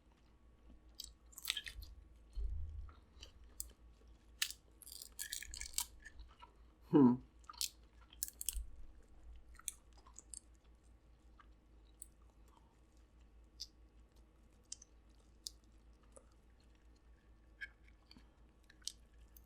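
Close-up eating sounds of a seafood boil: chewing with wet mouth clicks and crunches, busy in the first half and sparse after about ten seconds. A short falling pitched sound about seven seconds in is the loudest moment.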